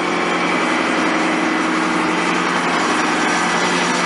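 Small gasoline engines of portable water pumps running steadily at constant speed, a level hum with an even pitch, pumping water into the dam.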